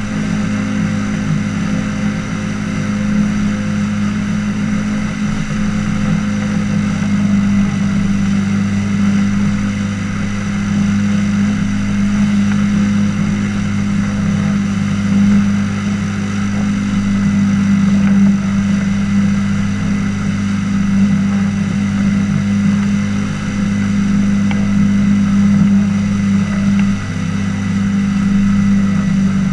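Flying inflatable boat's engine and rear pusher propeller running loud and steady at an even pitch as the boat skims across the water at speed.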